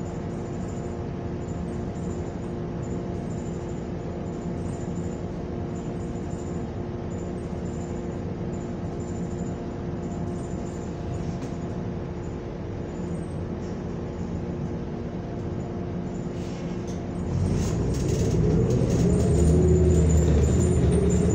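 New Flyer XN40 natural-gas bus engine idling with a steady hum while the bus stands, heard from inside the cabin. About seventeen seconds in, the engine revs up and its pitch rises as the bus pulls away.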